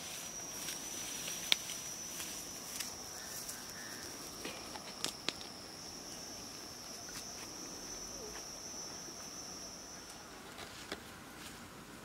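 An insect drones on one steady high note, stopping about ten seconds in, over footsteps in dry grass and a few sharp clicks and snaps, the loudest about a second and a half in.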